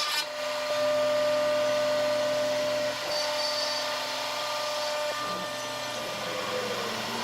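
A woodworking power tool's motor running steadily with a hissing, vacuum-like noise; its level shifts slightly about 3 s and 5 s in.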